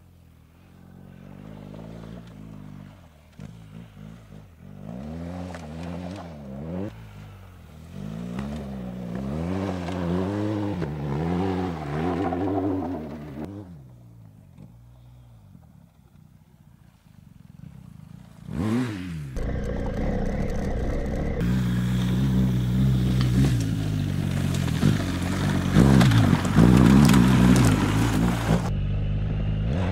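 BMW R 1250 GS boxer-twin engine revving up and down as the motorcycle is ridden off-road. Revs rise and fall repeatedly, quieten for a few seconds, then a quick rise and fall of pitch, followed by louder, harder running toward the end.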